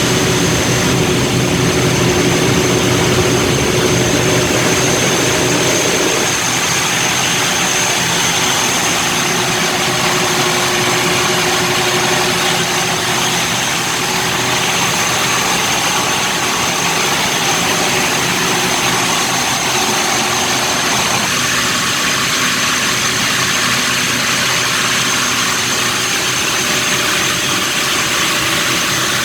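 High-speed ferry's engines running steadily at cruising speed, a dense machine noise with a thin high whine over it. The lower tones shift about six seconds in and again about twenty-one seconds in.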